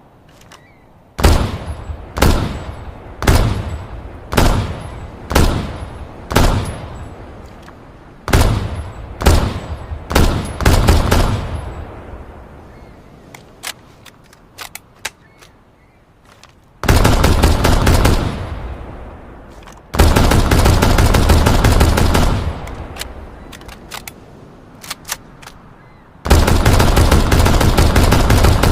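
MK14 EBR 7.62 mm battle rifle firing: six single shots about a second apart, then a quicker string of shots, a few faint clicks, and three long bursts of fully automatic fire, the last still going at the end.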